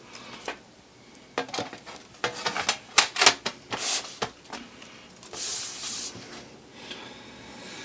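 Dust being blown out of an opened MacBook Pro: short hissing puffs of air, the longest lasting about a second past the middle, with a run of small clicks and taps from handling the laptop just before.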